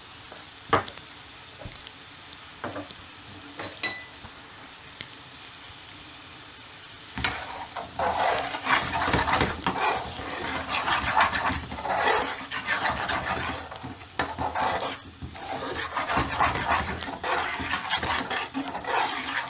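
A few light clicks, then from about seven seconds in a spoon stirring and scraping thick curry sauce around a pan in repeated strokes.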